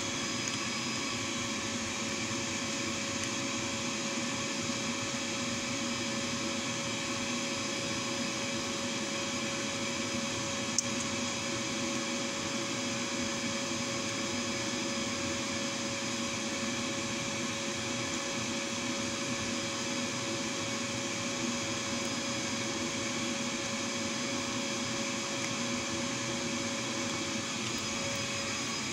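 A steady machine-like hum and hiss holding one fixed tone, with a single short click about eleven seconds in.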